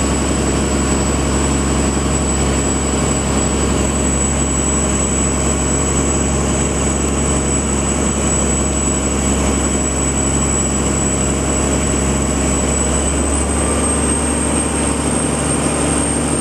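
Fishing boat's engine running steadily, a continuous drone with a thin high whine over it that steps slightly higher near the end.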